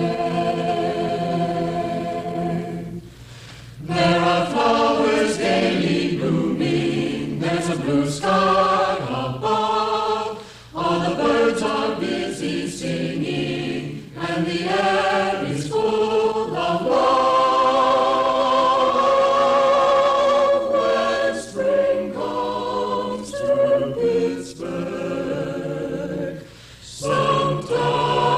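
A choir singing a slow, sustained melody in long phrases with vibrato, pausing briefly between phrases.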